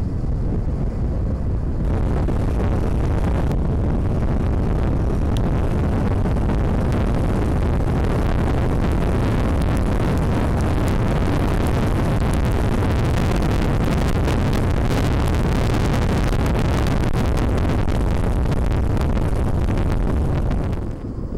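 Wind noise rushing over the microphone of a camera on a Zero FX electric motorcycle ridden at speed, up to about 135 km/h; it grows louder about two seconds in. There is no engine note to be picked out, only wind and road noise.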